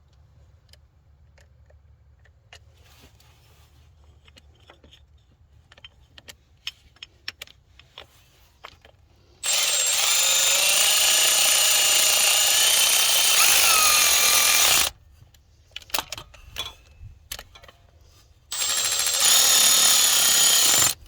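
Cordless Milwaukee electric ratchet whirring as it runs in the 14 mm bolts of a power steering pump bracket, with one run of about five seconds whose pitch drops as the bolt draws up, and a second, shorter run near the end. Faint clicks of sockets and bolts being handled come before and between the runs.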